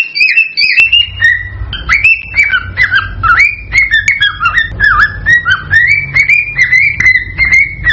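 Male cockatiel singing its courtship song: a fast, unbroken run of whistled notes, many dipping and then rising in pitch. A low rumble sits under the song from about a second in.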